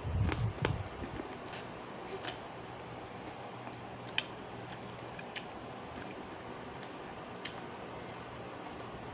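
Chewing and biting food for about the first second, then the steady hum of a small electric desk fan with a few faint clicks, one sharper click about four seconds in.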